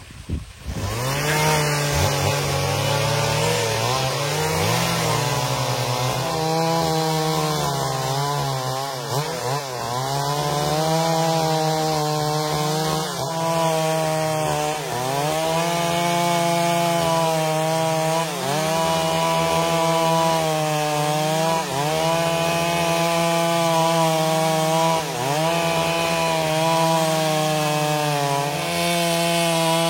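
Chainsaw running at high speed while ripping a log lengthwise along a marked line to mill a plank, its engine note dipping briefly every couple of seconds as it loads in the cut.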